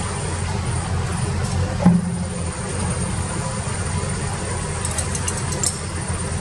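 Excavator engine running steadily at low revs, with a single short knock about two seconds in.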